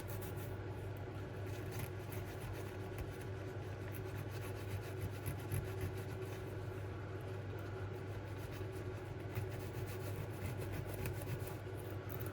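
A steady low electrical hum with faint, fine rubbing and scratching from small parts being cleaned by hand.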